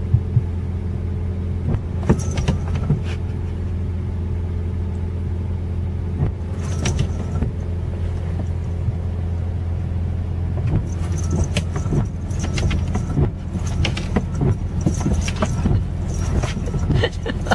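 Car engine idling, heard from inside the cabin as a steady low hum, with scattered light knocks and clicks over it.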